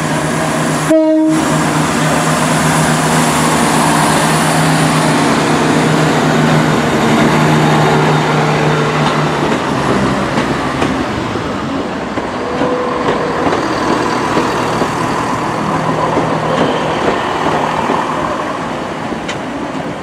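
West Midlands Railway Class 170 Turbostar diesel multiple unit, several units coupled, pulling out past the platform under power: a steady diesel engine drone with the run of the coaches, easing a little in the second half. A short tone sounds about a second in.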